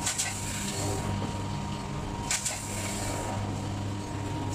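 Automatic vertical form-fill-seal packing machine running with a steady hum, broken by a short sharp hiss about every two and a half seconds.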